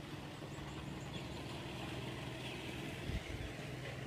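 An engine running steadily in the background at an even low hum, with a brief low thud about three seconds in.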